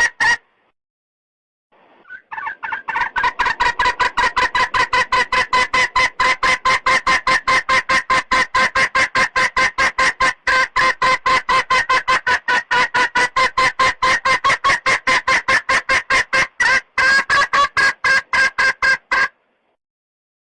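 Junglefowl hen calling a rooster: a rapid, even string of clucks, about five a second. It pauses briefly near the start, resumes about two seconds in, breaks once near the end, and stops shortly before the end.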